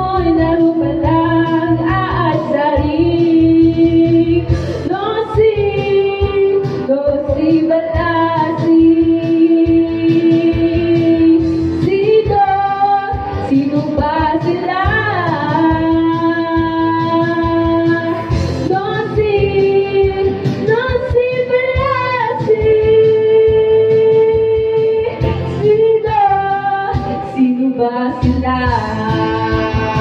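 Young woman singing karaoke into a wired handheld microphone over an instrumental backing track, holding long notes for several seconds at a time.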